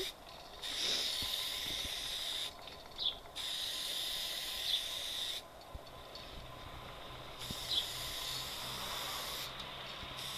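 Aerosol spray-paint can hissing in three long bursts of about two seconds each with short pauses between, as letters are sprayed onto a wall; a fourth burst starts near the end.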